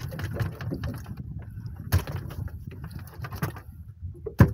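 Scattered clicks and knocks of mahi-mahi and gear being handled on a small boat's deck, with two sharper knocks, about two seconds in and near the end. A steady low rumble runs underneath.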